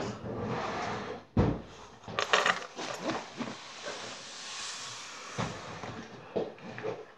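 A fabric razor case with clear plastic pockets being lifted and opened out: cloth and plastic rustling, with the metal safety razors inside knocking together, and a dull thump about a second and a half in.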